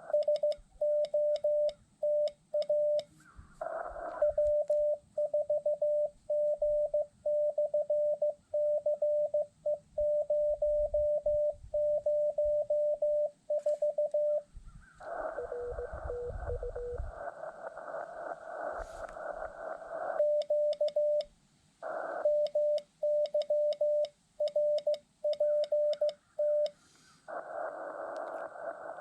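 Morse code (CW) being sent on an Icom IC-7100 amateur HF transceiver: a steady mid-pitched sidetone beep keyed in dots and dashes. About halfway through and again near the end the keying stops and the receiver's hiss comes up, with a fainter Morse tone in it the first time.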